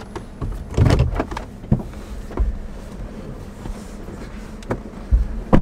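Inside a car cabin with the engine idling: a steady low hum under short knocks and rustles as the passengers shift about and handle things, the loudest about a second in and near the end.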